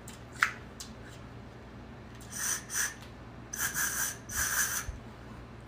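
Air rushing through a hollow green plant stalk held to the lips, in several breathy bursts with a faint whistling ring, starting about halfway through. A single sharp click comes about half a second in.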